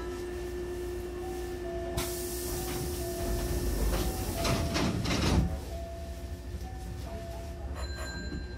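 Hankyu train's sliding passenger doors closing: a sudden hiss as they start to move about two seconds in, then a knock as the panels meet a little after five seconds. Short repeated beeps sound throughout.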